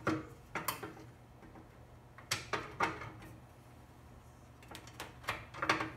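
Gutter channel being fitted by hand onto the mill: a series of sharp clicks and knocks as it is pushed and shifted into place, a few at the start, a pair around two and a half seconds in, and a quick cluster near the end.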